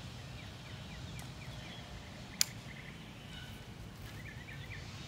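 Faint birds chirping in short, scattered calls over a steady low background hum, with one sharp click about two and a half seconds in.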